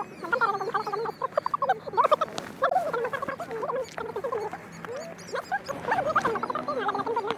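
A dense chorus of many short, squeaky animal calls, overlapping one another without a break.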